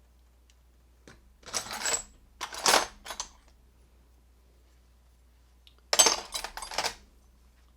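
Small metal pin tumblers dropping out of an American 200 series padlock core and clattering onto a hard surface, in three short bursts of metallic clicks and rattles.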